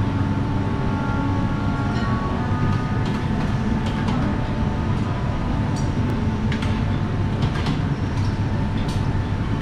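Busy buffet-restaurant din: a steady low rumble of room noise, with short clinks of dishes and utensils now and then.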